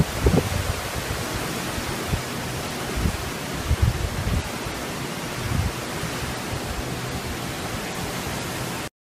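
Strong storm wind gusting through palm trees, a steady rushing hiss with irregular low buffets from wind hitting the microphone. The sound cuts off suddenly near the end.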